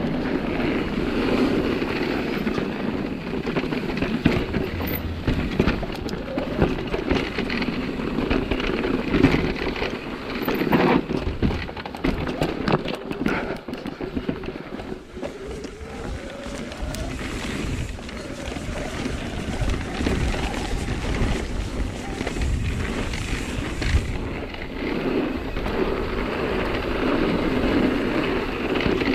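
Nukeproof Megawatt electric mountain bike riding downhill on a dirt forest trail: a continuous rumble of tyres over gravel and roots, with frequent rattles and knocks from the bike over bumps, easing briefly about halfway through.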